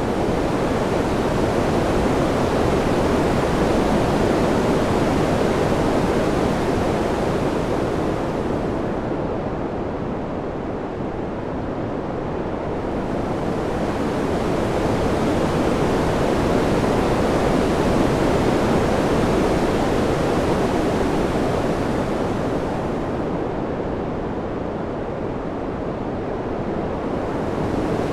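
Steady wind noise, a low rushing hiss that slowly swells and eases twice, growing duller as it eases.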